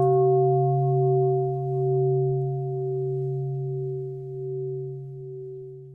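A meditation bowl bell ringing out and slowly fading, a deep hum with several higher overtones that waver in loudness as it dies away.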